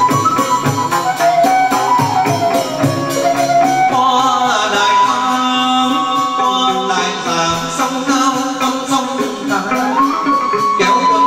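Chầu văn ritual music: a đàn nguyệt moon lute and percussion keeping a steady beat, with a singing voice, the melody growing fuller about four seconds in.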